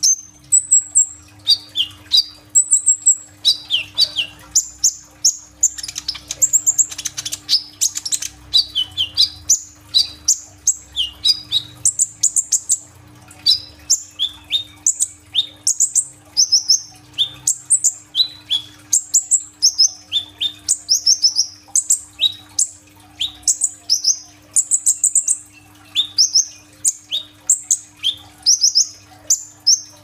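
Caged male sunbird (the 'kolibri ninja' of Indonesian bird-keepers) singing non-stop: a fast, unbroken string of short, sharp, high chirps and downslurred notes, several a second, the full run of mimicked phrases that keepers call 'gacor'.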